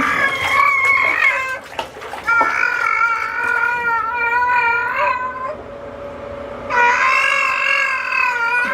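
Baby squealing in long, high-pitched held notes: one ending about a second and a half in, a second of about three seconds, and a third starting near the end.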